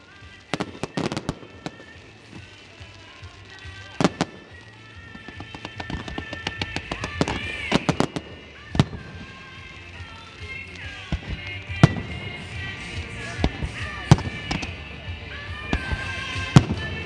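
Fireworks display: shells bursting in sharp, irregular bangs and crackles, with music playing alongside.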